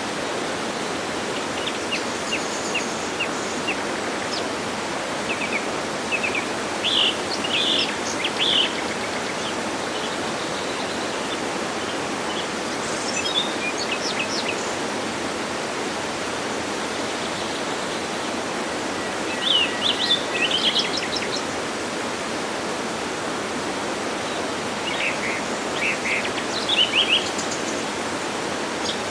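Steady rushing of a waterfall, with birds chirping and singing in short bouts over it, four times.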